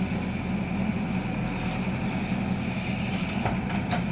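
Large diesel engine of heavy earthmoving machinery running steadily, a low even drone.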